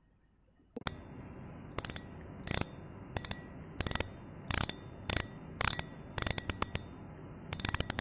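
Brand-new Shimano Saragosa SW14000XG spinning reel being cranked by its handle. A steady gear whirr starts about a second in, with bursts of clicking recurring every half-second or so.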